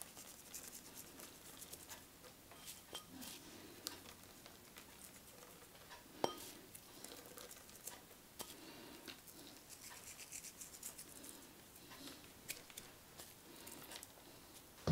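Chopped chives sprinkled by hand onto oiled, rolled-out dough: faint scattered pattering and small ticks as the pieces land and the fingers rub them loose, with one sharper click about six seconds in.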